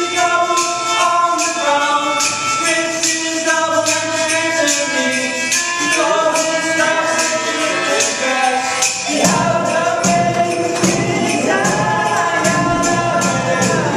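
Indie rock band playing live: held melody lines over a steady percussion beat. About nine seconds in, the bass and the rest of the band come in with a much fuller low end.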